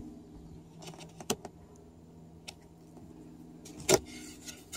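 Old wooden companionway hatch slide being pulled free of the fibreglass hatch frame, where it was bedded in butyl sealant. There are a few light clicks about a second in, then a short loud knock and scrape about four seconds in.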